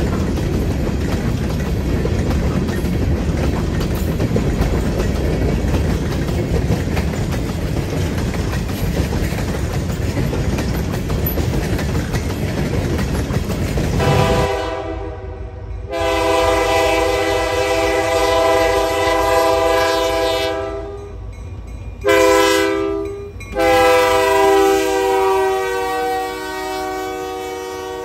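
Freight cars, covered and open hoppers, rolling past with a steady rumble and wheel clatter. About halfway through, a cut to the approaching Lake State Railway diesel locomotives sounding their air horn for a road crossing: two long blasts, a short one and a long one, the standard grade-crossing signal, fading as the engines pass.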